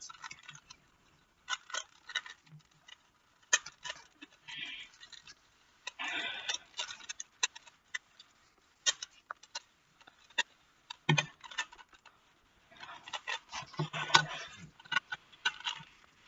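3x3 Rubik's cube being scrambled by hand: quick, irregular clicks and clacks of the plastic layers turning, in short flurries with brief pauses.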